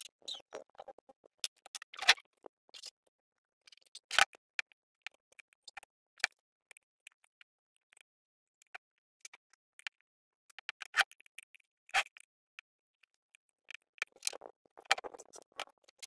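Metal engine parts of a dismantled small generator engine clinking and knocking as they are handled and set down on a workbench: scattered sharp clicks, the loudest about two, four, eleven and twelve seconds in.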